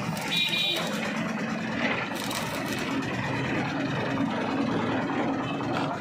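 Stick-welding arc crackling steadily as a steel joint on a concrete mixer's frame is welded, with a short high beep about half a second in.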